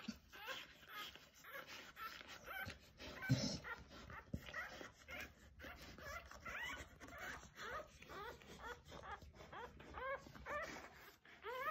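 Newborn English springer spaniel puppies squeaking and whimpering in a run of short, rising cries, with one bump about three and a half seconds in.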